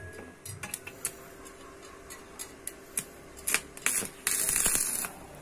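Scattered light clicks and knocks of metal scooter parts being handled, then a loud burst of hissing about four seconds in that lasts about a second.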